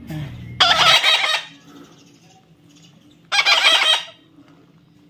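A bird calling loudly twice, each call under a second long, the second about three seconds after the first.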